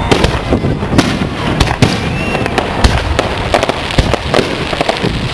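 Fireworks display: aerial shells bursting in a quick, irregular string of sharp bangs and crackles, several a second.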